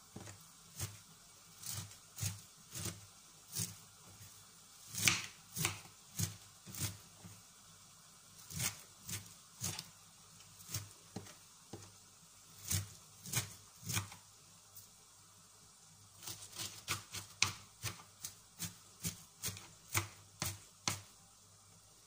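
Knife chopping shredded white cabbage on a cutting board: irregular sharp knocks of the blade striking the board, with a short pause partway through, then quicker strokes at about three a second.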